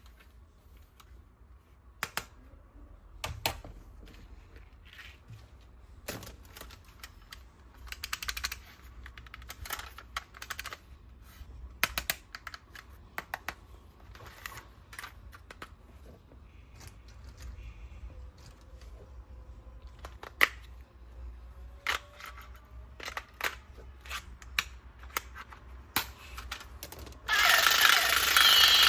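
Scattered sharp clicks and taps of hard plastic toy parts being handled. Near the end a loud, continuous mechanical rattle starts up suddenly and keeps going.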